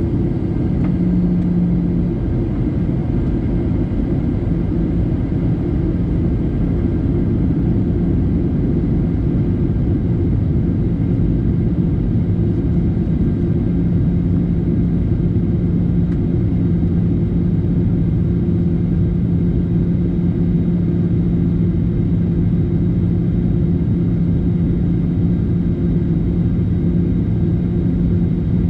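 Steady cabin noise inside a jet airliner on descent: a constant rumble of engines and airflow, with a low, steady hum that grows a little stronger about halfway through.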